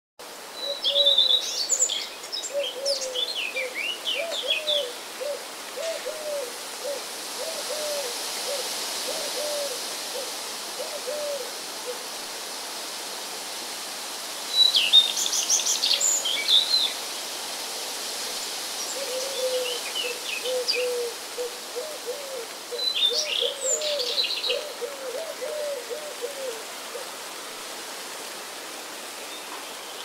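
Wild birds singing outdoors. High twittering phrases come about a second in, again around the middle and once more near the end, over a lower call repeated as a long run of short notes. A soft steady hiss runs beneath.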